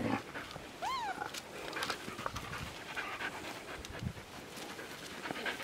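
Border Collie puppies and adult dogs playing: one short, high whine that rises and falls about a second in, with panting and faint scuffling.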